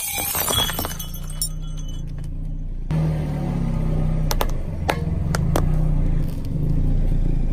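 A car tyre crushes a stemmed drinking glass, which breaks with a sharp crack and a second or so of tinkling shards. Then, over the car's steady engine hum, the tyre squashes a mesh squishy ball, with a few sharp pops about half a second apart.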